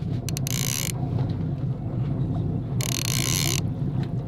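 Fishing reel buzzing in two short bursts while a fish is played on a trolling rod, over the steady low hum of the boat's engine.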